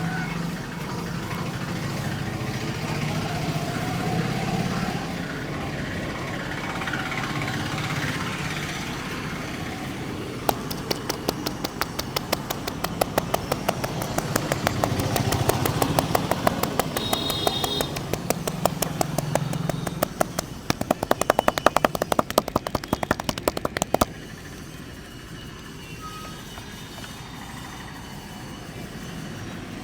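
A barber's hands slapping and tapping quickly and rhythmically on a head and shoulders during a massage, over steady street traffic. The strikes start about a third of the way in, turn faster and louder about two-thirds through, then stop suddenly.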